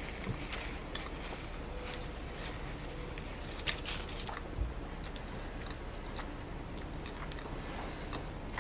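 Someone chewing and biting into a bagel, with faint scattered crunches and clicks and a soft low thump about halfway.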